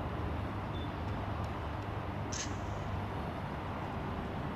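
Distant Boeing 777 Freighter's GE90 jet engines running at low thrust as it taxis: a steady, even low rumble. A short high-pitched chirp cuts in briefly about halfway through.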